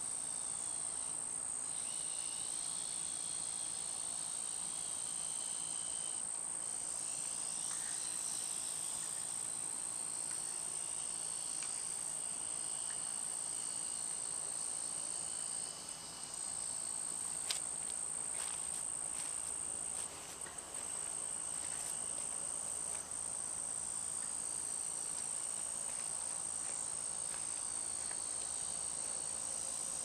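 Evening insect chorus: a steady, high-pitched trilling drone that drops out briefly twice.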